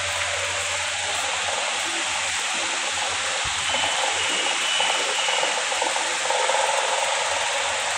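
A steady, even rushing hiss, with a faint high tone that comes in for a second or two about halfway through.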